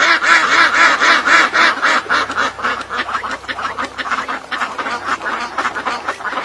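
Duck quacking in a fast run of short calls, several a second.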